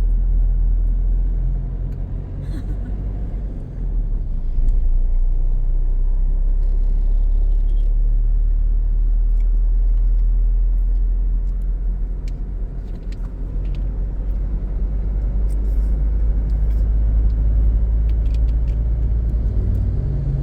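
Steady low rumble of a moving car, its road and engine noise.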